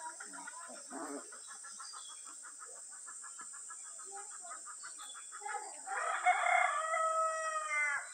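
A rooster crowing once, one long crow starting about six seconds in and dropping in pitch at its end. Before it comes a fast, even run of short ticking calls, over a steady high-pitched hiss.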